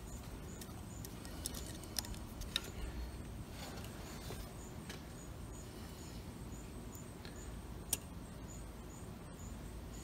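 A few faint metallic clicks and small handling sounds as a carburetor mixture screw is unscrewed and pulled out, over low steady background noise with a faint high chirp repeating about twice a second.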